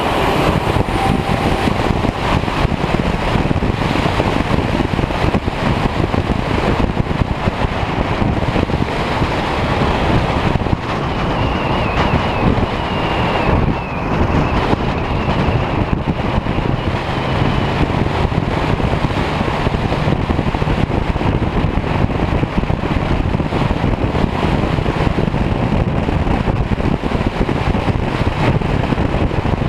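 Buick Regal T-Type driving along a street, heard from a camera mounted outside on the car's flank. Wind rushes over the microphone on top of steady engine and tyre-on-road noise.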